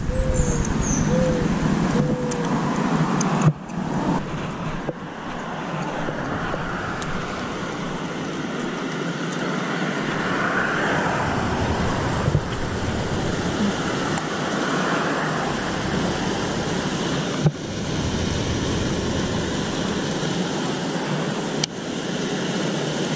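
Steady rush of water pouring over a concrete canal spillway weir.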